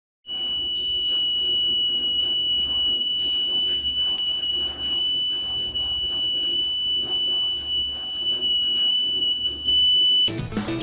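The buzzer of a homemade burglar alarm circuit sounding one continuous high-pitched tone: the alarm has been triggered. It starts suddenly, holds steady for about ten seconds over faint rustling, and cuts off near the end as guitar music comes in.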